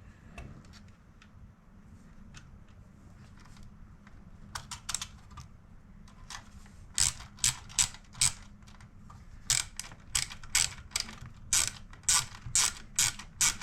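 Series of sharp ratchet-like mechanical clicks, sparse at first, then from about halfway a run of louder clicks roughly two a second, over a low steady hum. The clicks come from putting the car radio back together or back in.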